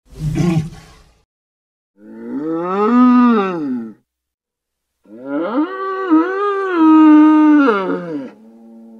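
Gastonia dinosaur sound effects: a short noisy burst, then a pitched call that rises and falls, and a second, longer call with a wavering pitch.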